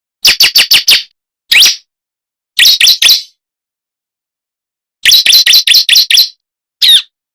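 Ciblek (prenjak jali), a prinia, calling loudly in groups of sharp, quick chirps: a run of five, a single note, three, then a fast run of about eight and one last note near the end. This is a pikat call, the kind played to lure the same species to answer.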